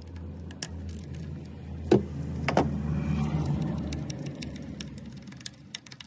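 Irregular sharp clicks and light metallic clinks of a hand tool undoing the 8 mm bolts that hold an ignition coil on a Ford 1.0 EcoBoost engine, with handling rustle. A low steady hum runs underneath and fades out about two-thirds of the way through.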